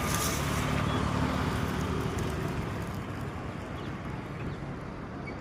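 Steady road traffic noise with a low engine hum, strongest in the first couple of seconds and easing slightly after.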